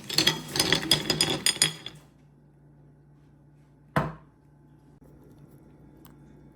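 Kitchen clatter of cooked sea snail shells and utensils: about two seconds of rapid clinking and knocking, then one sharp knock about four seconds in.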